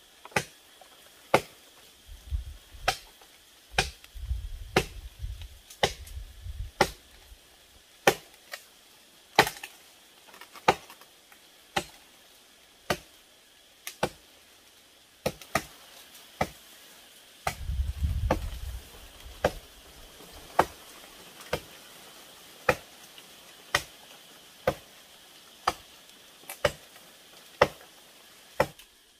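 Steady chopping with a blade, sharp strokes coming about once a second. A low rumble runs under the strokes for a few seconds near the start and briefly again past the middle.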